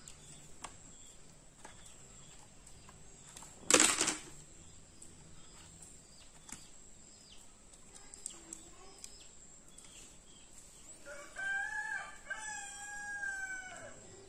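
A rooster crowing once, a long call of about three seconds near the end. Earlier, about four seconds in, a single sharp knock is the loudest sound. Faint clicks come from handling the laptop's hard drive and casing.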